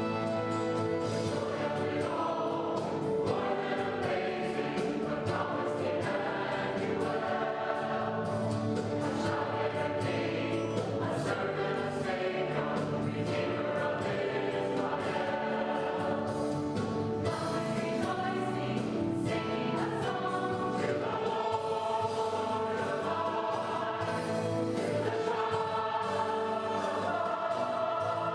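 Church choir singing a Christmas piece with instrumental accompaniment.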